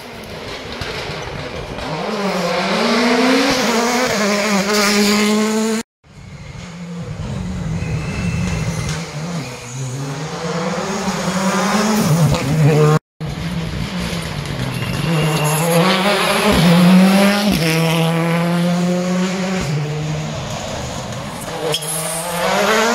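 Rally cars with turbocharged four-cylinder engines, among them a Škoda Fabia Rally2 and a Toyota Yaris WRC, passing one after another, each engine revving hard up and down through gear changes. The sound cuts out briefly twice as one pass gives way to the next.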